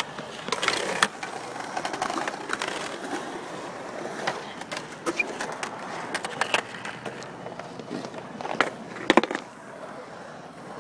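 A child's skateboard rolling over a concrete skatepark, the wheels running steadily with frequent clicks and clacks over joints and edges, and a few louder knocks near the end.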